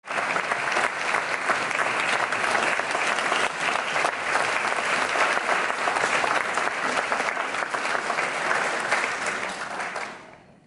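Audience applauding steadily in a concert hall, dying away near the end.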